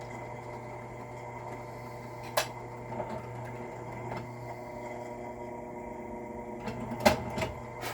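Drill press running steadily with a quad-pin roll crimp tool, tapering the edges of a fold-crimped shotgun hull. A sharp click about two and a half seconds in and a short cluster of knocks near the end.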